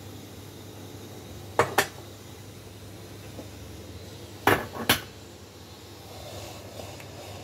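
Kitchenware clinking and knocking on the countertop: two quick pairs of sharp clinks, one about a second and a half in and a louder one about four and a half seconds in.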